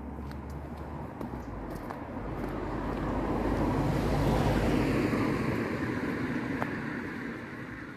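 A road vehicle passing by: tyre and engine noise swells to a peak about halfway through and then fades away.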